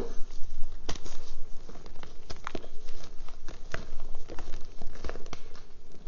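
Pink reformed gym chalk crunching and crumbling as a gloved hand crushes it over a bowl of loose chalk, with irregular sharp cracks among a soft powdery crackle.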